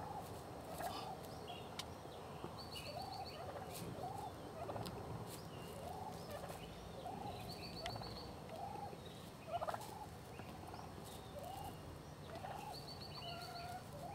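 Wild hen turkeys calling at a decoy: a steady run of short, arched notes, about one a second, with a brief sharp clatter about ten seconds in.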